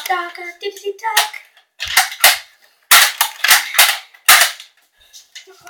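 Toy foam-dart blasters firing, a quick string of about half a dozen sharp snapping shots over two or three seconds.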